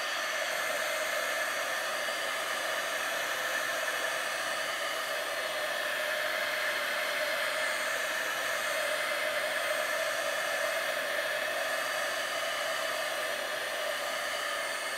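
Handheld heat gun running steadily, blowing hot air over wet acrylic pour paint on a canvas: a constant airy whoosh with a steady motor whine, held at one pitch.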